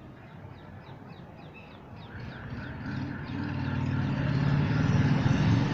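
A motor vehicle's engine coming closer, its rumble growing steadily louder from about two seconds in. Over it, a rapid series of high, short chirps repeats several times a second.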